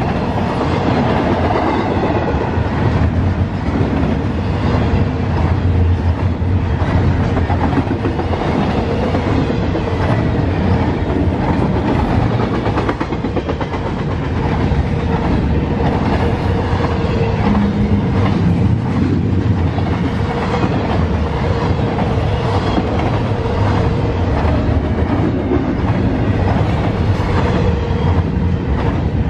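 Double-stack intermodal freight train rolling past at speed: a steady rumble of the wheels on the rails with repeated clicking and a steady hum.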